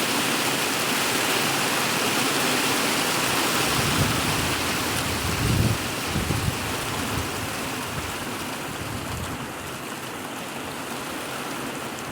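Heavy hail falling on a polycarbonate roof: a dense, very loud clatter that eases a little in the last few seconds, with a few low thuds around the middle.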